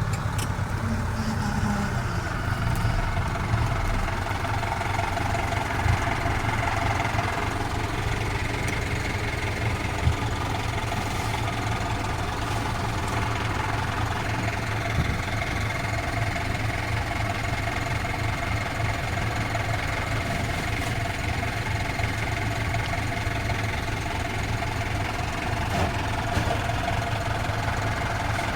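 Off-road vehicle's engine running steadily at low revs as it drives along a trail, a constant low drone with a steady whine above it.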